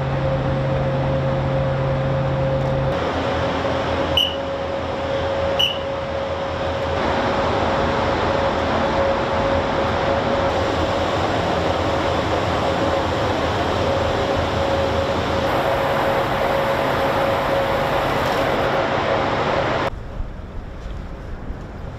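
Steady shipboard machinery noise on a frigate's deck: a constant whine over a rushing hum, with two short clicks about four and six seconds in. Near the end it drops abruptly to quieter wind and sea noise.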